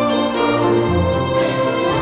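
Orchestral-style background music: sustained instrumental notes and chords, with a note change a little under a second in and a fuller low register near the end.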